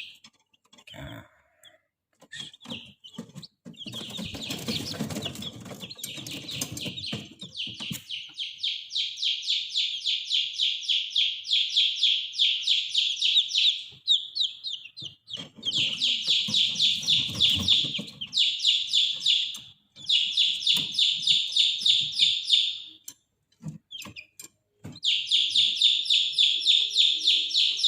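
Newly hatched chicks peeping in long runs of rapid, repeated high calls that pause briefly a few times, with some rustling and handling noise in between.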